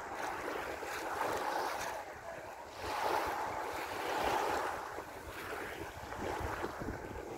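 Small wind-driven waves washing at the water's edge, the wash swelling and easing, with gusts of wind rumbling on the microphone.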